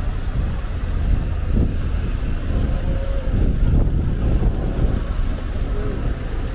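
City street traffic: a steady low rumble of passing cars and engines.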